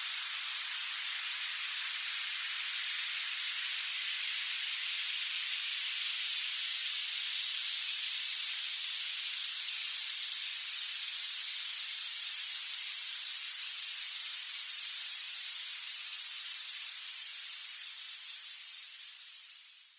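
Violet noise: a steady, very bright electronic hiss weighted toward the highest pitches with no low end, fading out near the end.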